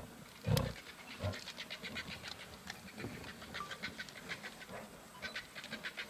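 Lion giving short, deep grunts twice in the first second, with a weaker one just after. A faint, rapid run of high clicks follows.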